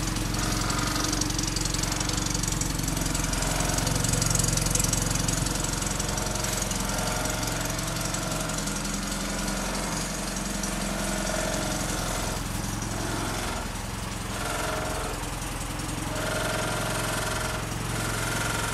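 Land Rover Series III fire engine's engine idling steadily.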